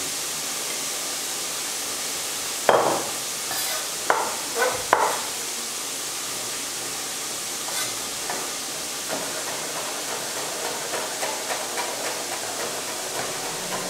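Chef's knife chopping parsley on a wooden cutting board: a few loud knocks a few seconds in, then quicker, lighter chopping strokes. Under it, the steady sizzle of pancetta frying in a pan.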